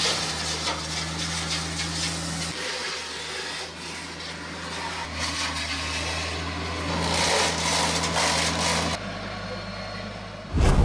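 TYM T474 compact tractor's diesel engine running steadily, driving through its PTO hydraulic power pack a Hardee Brush Tiger front-mounted rotary cutter that chops into brush and limbs, a noisy hiss with brief crackles over the engine's hum. The sound changes abruptly a few times, and a short loud low rumble comes in near the end.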